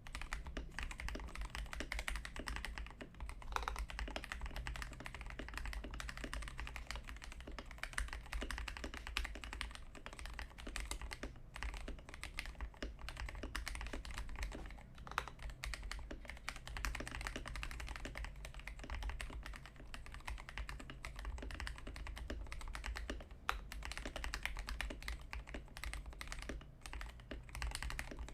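Continuous fast typing on a Glorious GMMK Pro mechanical keyboard with factory-lubed Gateron Cap Milky Yellow linear switches on its stock aluminium plate and XDA PBT keycaps: a dense run of key strokes with a few short pauses. A steady low hum sits under it.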